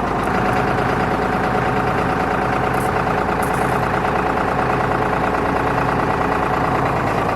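John Deere 4040 tractor's diesel engine running steadily.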